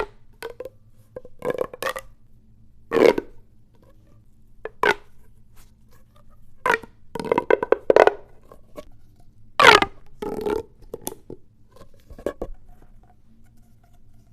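Plastic pop tubes fidget toy being stretched and squashed, making short crackling, popping bursts, some with a sliding tone. There are about ten bursts, uneven, with short pauses between them.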